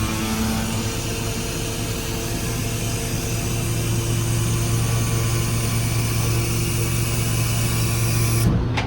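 Cat C7 diesel engine running steadily, driving the hydraulics of a truck-mounted crane in operation, with a hydraulic hiss over the engine hum that cuts off near the end as the crane motion stops.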